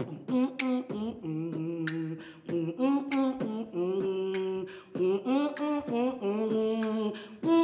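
A woman beatboxing: sharp percussive mouth clicks and pops mixed with held, sung vocal notes that step up and down in pitch.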